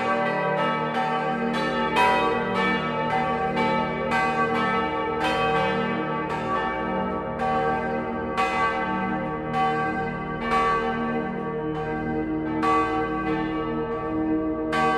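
Church bells pealing: several bells struck one after another at about two strikes a second, their ringing tones overlapping.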